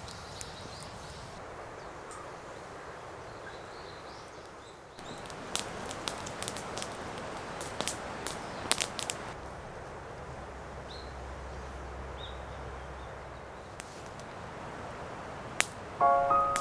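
Woodland ambience: a steady hiss with faint bird chirps now and then. From about five seconds in, the hiss grows louder and a run of sharp snaps or clicks follows for a few seconds.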